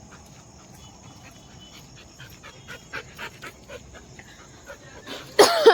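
A dog panting and snuffling softly, with a short, loud cry with falling pitch near the end.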